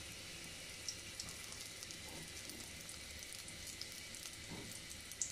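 Egg-and-cornflour-coated chicken pieces frying in hot soybean oil in a karahi: a steady sizzle with many small scattered crackles and pops.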